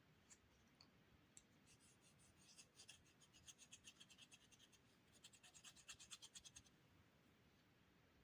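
Faint, rapid scratching: a run of quick small strokes, about seven a second, starting about two seconds in, easing briefly around the middle, and stopping a little before the end.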